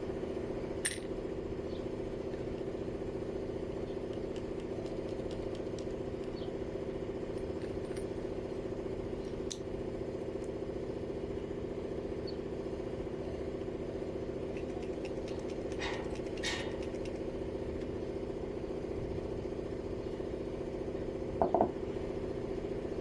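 A steady mechanical hum, with a few light metallic clicks and clinks as small hydraulic pump parts, a check ball and a piston, are handled and fitted.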